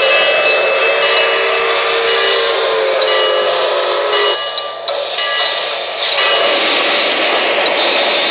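K-Line NYC J1e Hudson O-gauge model steam locomotive's sound system blowing a steam whistle, which cuts off about four seconds in. After a short dip, steady running noise follows.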